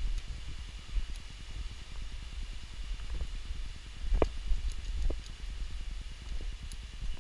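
Footsteps walking along a path, about one a second, over a steady low rumble of wind and movement on an action camera's microphone.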